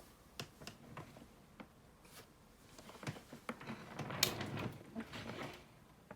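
Handling noise from a large-format camera being turned over and handled: scattered small clicks and rubbing, busier about two thirds of the way in, with one sharp click about four seconds in.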